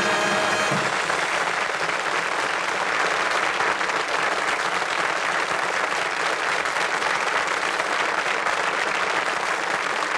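Studio audience applauding steadily. A big band's closing chord, on saxophones and brass, cuts off about a second in.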